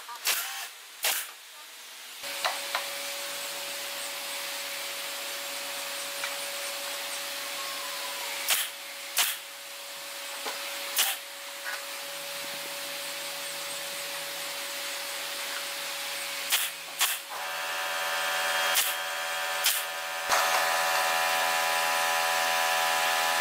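Pneumatic nail gun firing about ten single sharp shots at irregular intervals as wooden frame pieces are nailed together. Under the shots a steady machine hum and hiss comes on about two seconds in and grows louder near the end.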